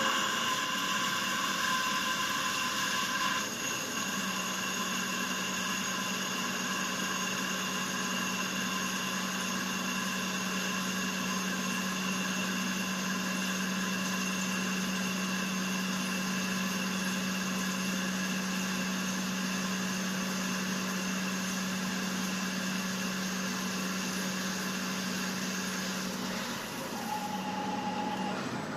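CNC lathe running, its motors giving a steady whine with several high tones. The low hum settles in about four seconds in and stops shortly before the end.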